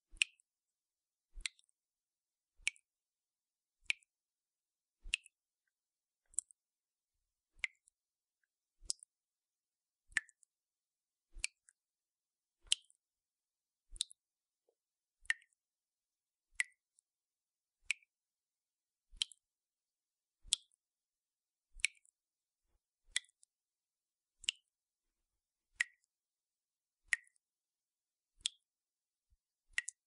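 Water drops falling from a dripping tap, steady and evenly spaced at about one drop every 1.3 seconds, each a short sharp plop with a brief high ring.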